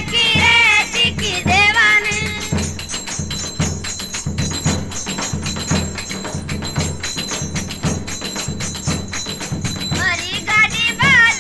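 Rajasthani Fagan folk song. Singing for the first two to three seconds gives way to an instrumental break of drum strokes and jingling percussion in a steady beat. The singing comes back in about ten seconds in.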